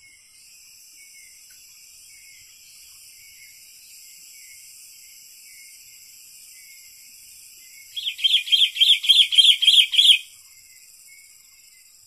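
Sooty-headed bulbul (kutilang) calling: a quick, loud run of about ten evenly spaced notes lasting about two seconds, starting about two-thirds of the way in. Under it is a steady high-pitched insect drone.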